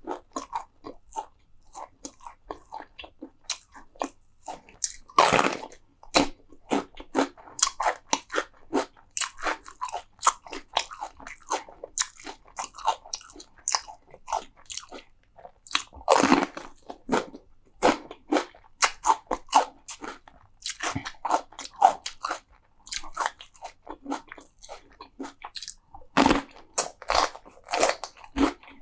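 Close-miked eating: a mouth chewing crunchy food, a steady run of crisp crunches with three louder bites, about 5, 16 and 26 seconds in.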